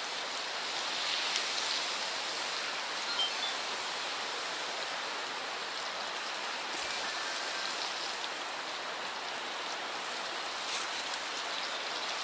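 Running stream water, a steady rushing.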